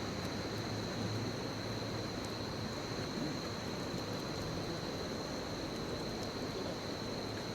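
Wood bonfire burning with a steady hiss and a few faint, scattered crackles, over a steady high-pitched whine and a low hum.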